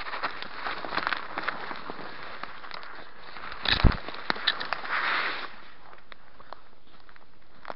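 Footsteps crunching over dry leaf litter and twigs on a forest floor, with crackling snaps. A loud crack with a thump just before four seconds in, then spruce branches rustling as they brush past around five seconds.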